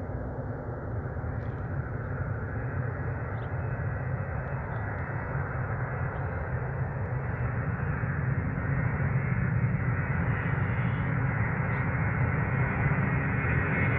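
Boeing 707's four Pratt & Whitney JT3D turbofan engines running at takeoff power, a steady jet rumble that grows gradually louder, with a faint whine on top near the end.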